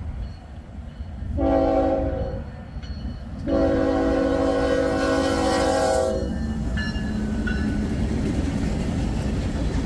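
Norfolk Southern diesel locomotive sounding its multi-note air horn: a short blast about a second and a half in, then a longer one of about two and a half seconds. After that the train rolls past, its wheels rumbling and clattering on the rails, with a few brief high squeals.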